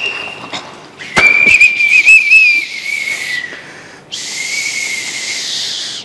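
Whistle blown in three blasts: a short one at the start, a warbling blast of about two seconds after a sharp hit, then another steadier blast of about two seconds near the end.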